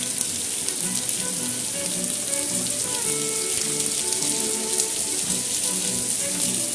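Rain falling steadily on a wet paved street and pavement: an even hiss dotted with the ticks of many single drops.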